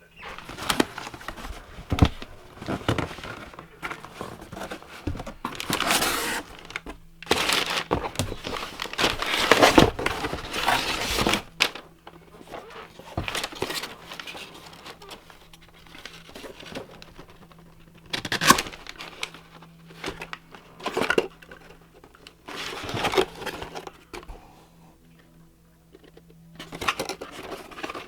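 Packaging being handled and opened by hand: irregular crinkling, rustling and tearing in bursts, busiest for several seconds near the middle, with quieter pauses between.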